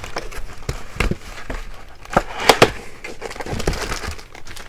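Packaging being opened and handled by hand: an irregular run of crackles, clicks and crinkles, sharpest about two and a half seconds in.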